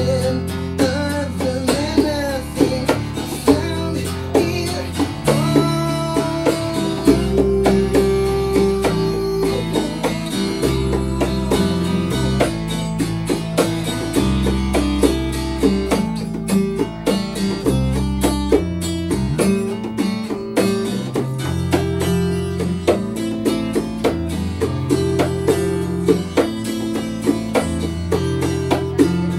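Acoustic rock band playing: strummed acoustic guitar over electric bass, with bongos played by hand.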